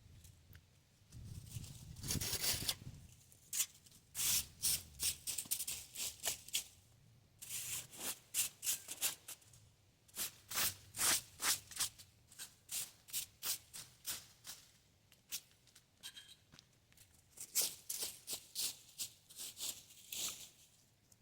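Rake scraping through dry leaves in repeated short, rustling strokes, roughly two or three a second, with a few brief pauses.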